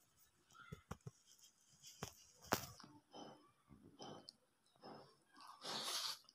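A hand mixing rice and egg curry on a steel plate: a few sharp clicks against the metal, then a run of short wet mixing noises that grow louder near the end.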